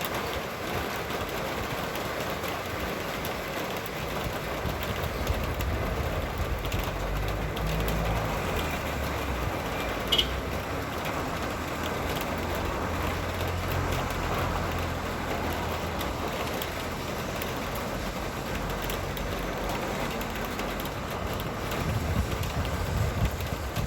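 Vehicles passing on a wet road, their engines rumbling low for several seconds in the middle and again near the end, over a steady hiss of rain and wind. A single short click about ten seconds in.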